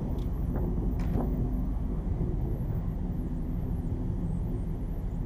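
Steady low drone of a large car ferry's engines and deck machinery under way, with a faint steady hum. A couple of light clicks about a second in.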